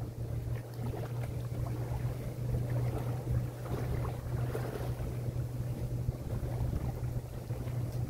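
Wind gusting on the microphone and small lake waves lapping against the shore, over a steady low drone from a distant engine.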